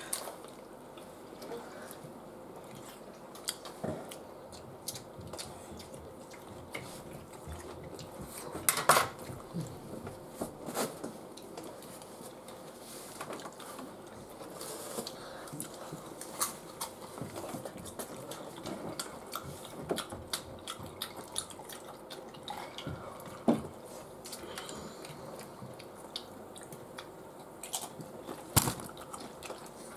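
Metal forks scraping and clinking against a metal baking tray of nachos as people eat from it: scattered small clinks and scrapes, with a few louder clatters, the biggest about a third of the way in and near the end.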